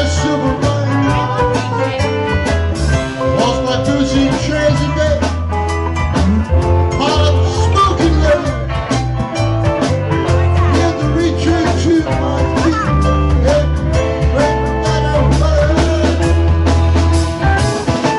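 Live band playing: electric guitars, electric bass, keyboard and drum kit, with a heavy bass line and steady drum hits.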